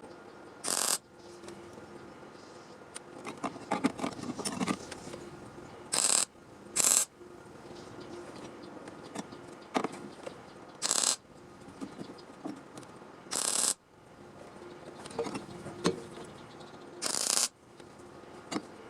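Metalworking in a workshop: six short bursts of hiss-like noise, each under half a second, with metal clicking and rattling between them.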